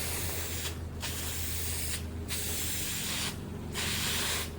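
Paint sprayed in repeated bursts of about a second each with short pauses between, as the new steel patch panels get their rust-protective coat. A steady low hum runs underneath.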